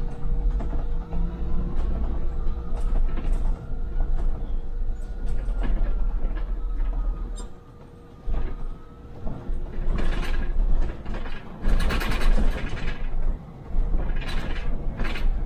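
Hybrid MAN Lion's City city bus on the move: a whine rises in pitch over the first few seconds, then levels off and eases down, over a low rumble. In the second half there are bursts of rattling and clattering.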